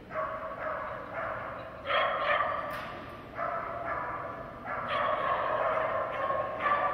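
A corgi barking over and over while running an agility course, about ten barks in short runs.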